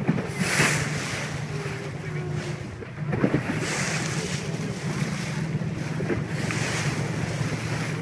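Boat's steady low engine hum under the rush of water and wind gusting on the microphone, the wind noise swelling every second or two.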